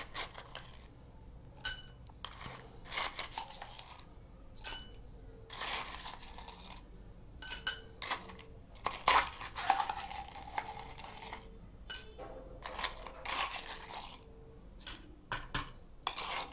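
Crushed ice being scooped with a metal bar spoon out of a stainless steel tin and dropped into a tall glass: irregular scrapes of spoon and ice against the metal, with clinks of ice landing in the glass.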